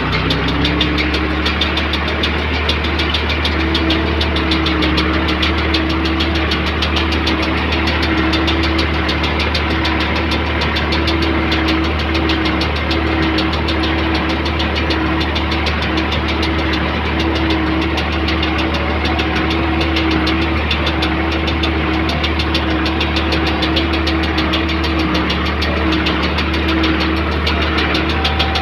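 New Holland 55-56 tractor's diesel engine running steadily, heard from inside the cab, with the PTO-driven Tümosan S690 square baler working behind it. The engine note rises slightly about a second in, then holds steady.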